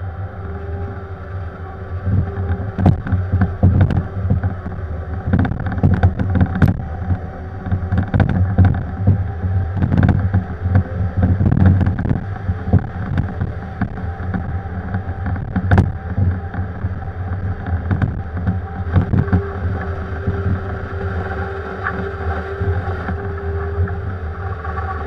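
Bobcat compact machine's diesel engine running steadily under load, with repeated knocks and clatter of shale rock against the steel bucket, thickest in the first half. A steady whine grows stronger in the second half.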